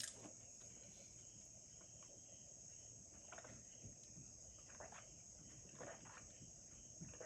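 Near silence: a steady high-pitched hiss, with a few faint, short, soft sounds scattered through it.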